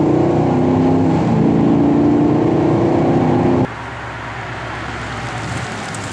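Chevrolet Camaro SS V8 fitted with Stainless Works headers and stainless exhaust, droning steadily from inside the cabin while driving, its pitch shifting now and then. About three and a half seconds in it cuts abruptly to a quieter, rougher engine rumble.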